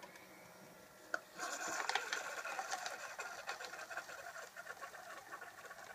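Single-serve Keurig coffee maker brewing: a click about a second in, then the machine's pump starts with a fast pulsing noise as coffee dispenses into the cup, slowly fading.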